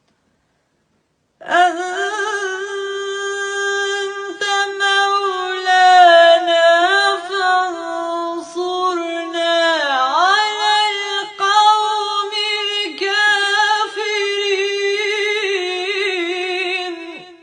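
A woman's unaccompanied solo voice in melodic Quran recitation, drawing out one long ornamented phrase. It starts about a second and a half in, dips low in pitch midway, and stops just before the end.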